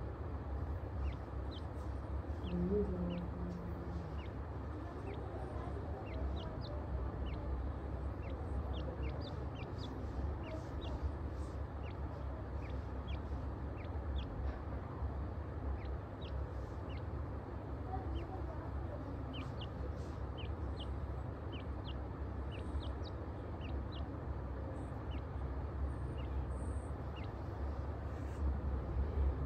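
Teetar partridge chicks giving many short, high peeps, scattered irregularly, over a steady low hum.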